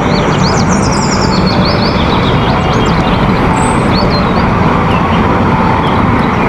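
Concrete mixer truck's engine running steadily with road noise, and birds chirping high above it, most busily in the first couple of seconds.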